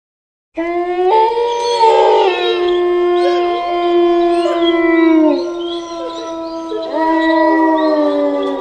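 A comedy sound effect of dogs howling together: long, held howls at several pitches at once. It starts about half a second in, the howls sag in pitch as they end, and a fresh howl rises about seven seconds in.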